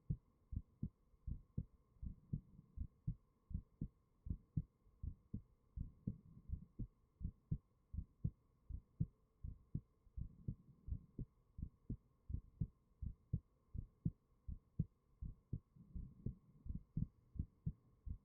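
A human heartbeat, recorded close up: a steady run of low, paired lub-dub thumps, a little over one beat a second, over a faint steady hum.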